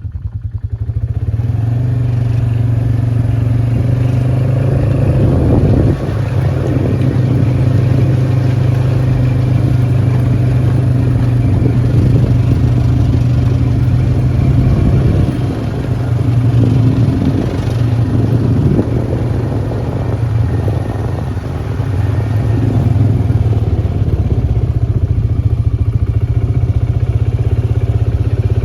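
Vehicle engine running steadily while driving: a loud, low, even hum that dips slightly a couple of times.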